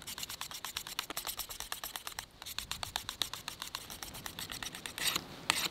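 Steel knife blade drawn in quick short strokes across a Work Sharp pocket sharpener: a rapid run of light scraping ticks, about ten a second, with a few longer, louder strokes near the end.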